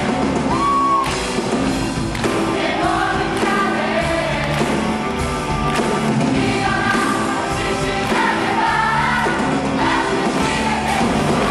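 Musical-theatre cast singing a rock number together with a live band, voices amplified through headset microphones, over a steady drum beat.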